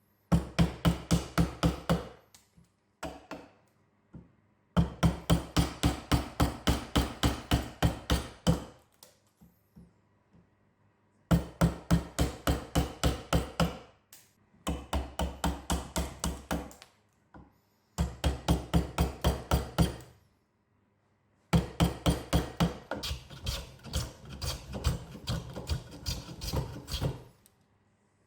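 A mallet striking a chisel, chopping waste from a pine board. It comes as quick, regular blows, about five a second, in bursts of a few seconds with short pauses between.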